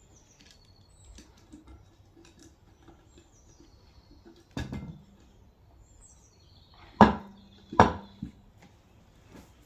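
Metal-on-metal clanking from tools and axle parts being handled: light clicks, then three sharp metallic knocks with a short ring, the last two about a second apart near the end.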